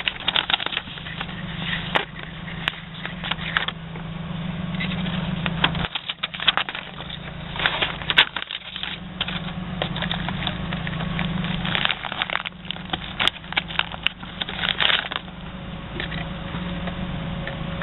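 Packaging being handled during an unboxing: irregular crinkling and crackling with short clicks throughout, over a steady low hum.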